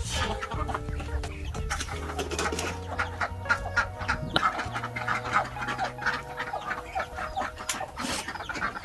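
Chickens clucking over background music.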